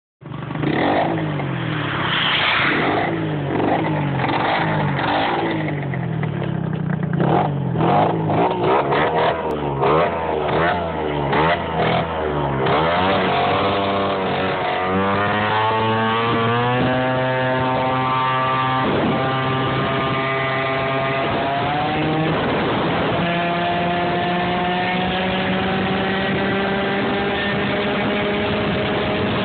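Piaggio NRG MHR Replica two-stroke scooter engine with a Polini For Race 2 exhaust, ridden: revving unevenly up and down at first, then accelerating with a steadily rising note, a short dip, and a high, nearly steady note near the end. The owner describes the engine as out of tune and badly jetted, with the exhaust unsuited to it.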